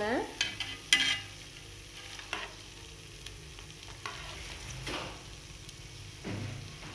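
Ribbon pakoda deep-frying in hot oil with a steady sizzle that has died down as the strips cook through, the point at which they are turned. A metal utensil scrapes and clicks against the non-stick kadai a few times as it flips the strips.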